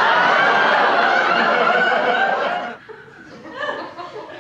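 Theatre audience laughing loudly, a dense sound of many voices that drops away suddenly a little under three seconds in.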